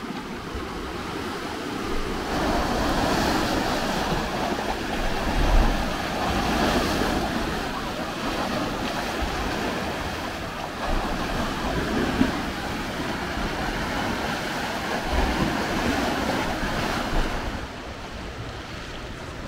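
Sea surf washing and breaking against rocky cliffs in a narrow cove, a continuous rushing wash that swells and eases every few seconds. Wind buffets the microphone now and then with low rumbling bumps.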